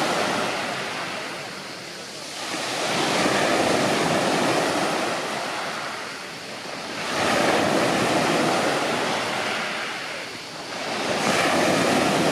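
Sea waves washing in and out, a rushing noise that swells and fades about every four seconds.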